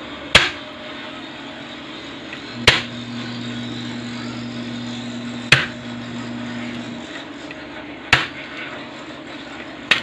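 Four sharp knocks of a kitchen knife striking a cutting board, roughly every two and a half seconds, as garlic cloves are cut or crushed.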